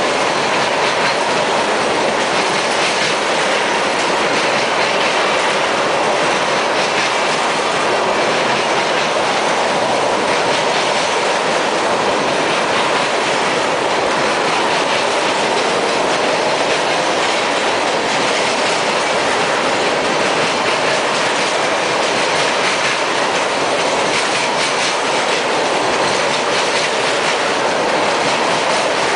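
Tank cars of a unit ethanol freight train rolling past, a loud steady rush of steel wheels on rail with repeated clicks.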